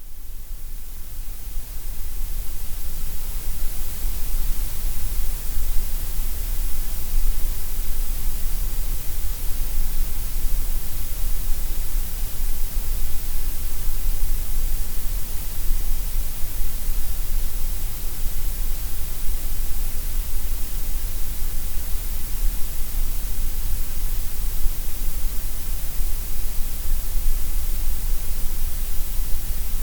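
Steady white noise: an even, continuous hiss across all pitches that fades in over the first couple of seconds and then holds level.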